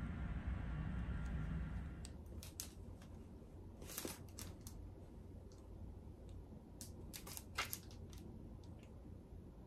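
A steady low hum for about two seconds, then the pages of a paperback manga volume being flipped by hand: a run of short, crisp paper rustles, the loudest ones about four seconds in and again near the end.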